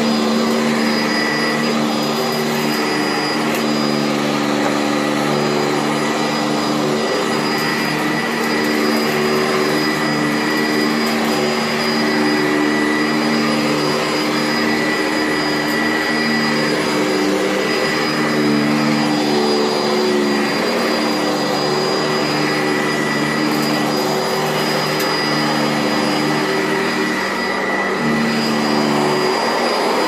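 Sanitaire SC679J upright vacuum cleaner running continuously while being pushed back and forth over the floor. It makes a steady motor hum with a high whine, and the pitch shifts slightly from stroke to stroke.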